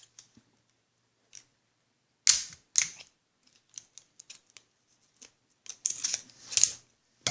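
Scissors cutting through plastic battery packaging: short, sharp crunching snips, two close together about two and a half seconds in and two more near six seconds, with faint ticks between.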